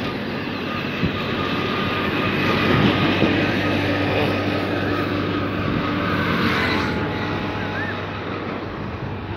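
Highway traffic passing: engines and tyres of passing vehicles swell past about three seconds in and again around six to seven seconds, over steady road noise.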